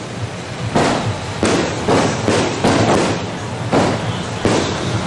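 Fireworks and firecrackers going off in a loud series of bangs, about eight in five seconds, each trailing off briefly.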